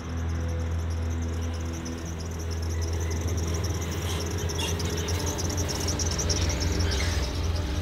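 Crickets trilling in a fast, pulsing night chorus over a low steady hum, the whole growing a little louder after about three seconds.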